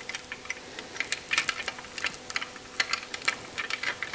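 Double-row steel timing chain rattling as it is handled, a string of irregular light metallic clicks.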